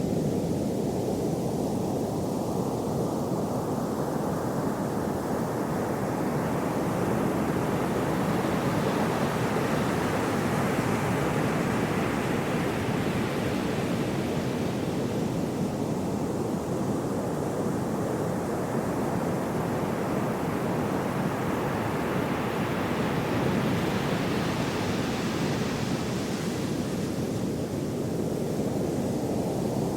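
Gentle sea waves washing continuously, the surf swelling brighter twice, about twelve seconds apart, as waves come in and draw back.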